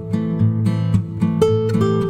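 Background music: acoustic guitar strummed in a steady rhythm.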